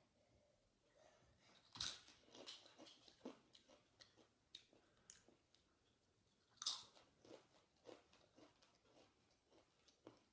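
A person biting into and chewing a Doritos tortilla chip close to the microphone: a loud crunch about two seconds in and another a little before seven seconds, with softer chewing crunches in between.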